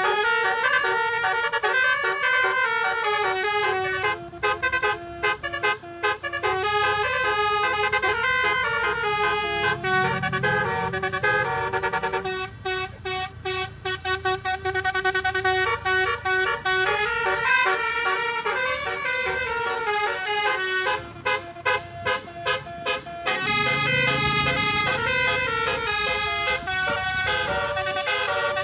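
A tourist bus's telolet horn, a set of air horns tuned to several pitches, playing a melody as shifting chords. In places it sounds in quick short toots.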